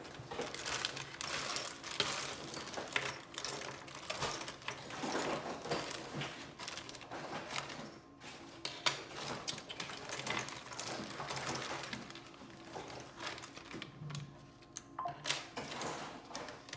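Small hard tools and parts clicking and rattling as they are handled, a dense run of light clicks that thins out near the end.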